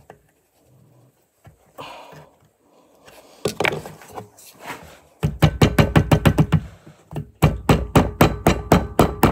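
Hammer striking metal on an ATV CV axle in two quick runs of even blows, about seven a second, after a few scattered knocks.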